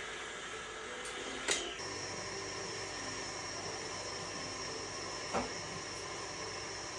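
Steady hiss with two sharp knocks, one about a second and a half in and another near five and a half seconds. Just after the first knock a steady high tone and a low hum come in and keep going.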